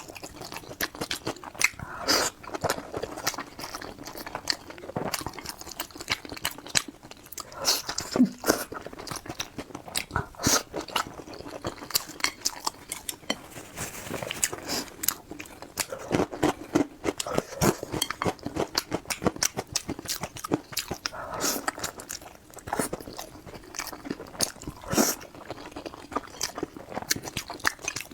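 A person eating close to the microphone, biting and chewing food, with many irregular sharp crunches and mouth clicks throughout.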